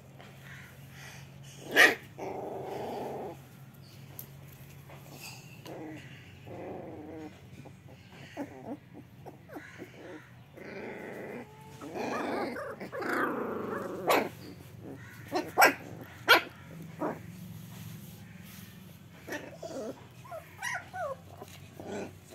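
A litter of young puppies play-fighting, growling with short sharp yaps and a few whimpering cries scattered throughout.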